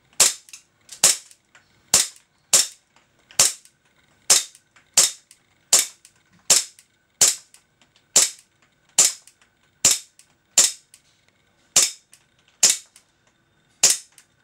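A full-metal Hi-capa 4.3 gas blowback airsoft pistol is fired in semi-auto, about seventeen sharp shots at a steady pace of a little over one a second. Each shot carries the snap of the gas-driven slide cycling.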